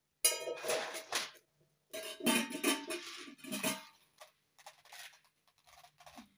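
Metal pot and lid clattering, ringing briefly twice, followed by softer rustling and rattling of dry cowpeas being handled in a plastic bowl.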